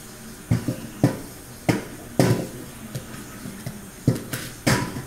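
Metal spoon and ice-cream scoop knocking and scraping against a stainless steel bowl while frozen ice cream is scooped up. Seven sharp knocks at uneven spacing, with a lull in the middle.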